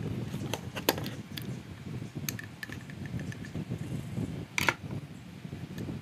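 Light clicks and taps of a screwdriver and plastic hair-dryer parts being handled while the dryer is taken apart, with a louder clatter about four and a half seconds in, over a steady low background noise.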